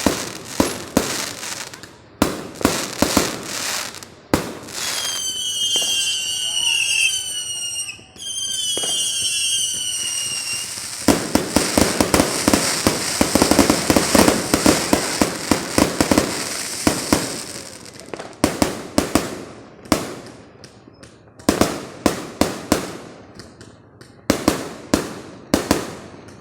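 New Year fireworks going off: a run of sharp bangs, then high falling whistles some five seconds in. About eleven seconds in comes a dense, rapid crackling barrage lasting several seconds, and after it come separate, spaced bangs again.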